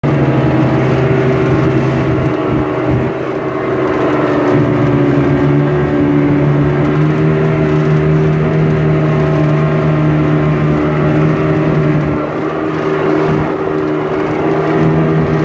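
Motorized river longboat's engine running hard, a loud steady drone that drifts slightly in pitch and dips briefly a few times, over the rush of whitewater rapids along the hull.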